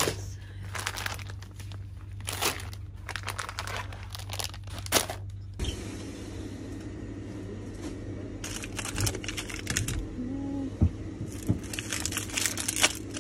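Crinkling and rustling of plastic food packaging being handled by hand, in repeated bursts that pause about halfway through and then come back, over a steady low hum.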